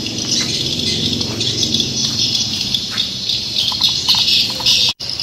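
Swiftlets twittering, a dense continuous high chatter of many birds over a low steady hum. The sound drops out for an instant near the end.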